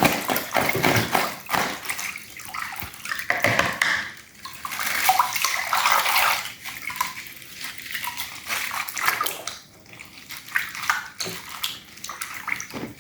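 Hands squishing and kneading slime, wet squelching and crackling that comes and goes in uneven bursts.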